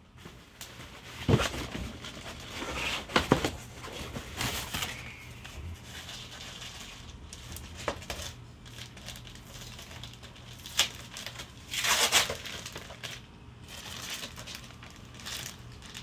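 Hands rummaging through a box of car parts: packing material crinkling and rustling, with a few sharp knocks and clicks and a louder rustle near the end.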